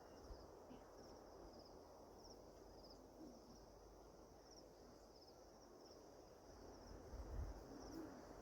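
Faint insect chirping: short high chirps of a few quick pulses, repeating steadily a little more than once a second, with a brief low rumble near the end.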